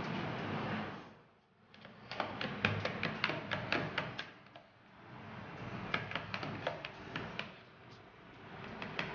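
A Weimaraner puppy chewing raw food, heard as two runs of quick, sharp crunching clicks, several a second.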